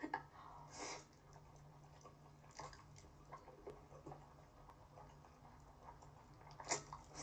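Faint close-miked eating sounds: a mouthful of cold, spicy bibim-naengmyeon noodles being slurped and chewed, with small wet smacks. Louder slurps come about a second in and near the end, over a low steady hum.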